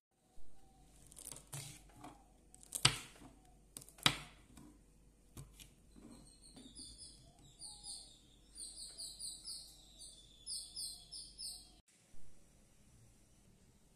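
Kitchen knife cutting on a wooden chopping board: a few sharp knocks and chops, then a steady run of short crisp slices through green chilies, about two a second. The slicing stops abruptly near the end, followed by a single thump.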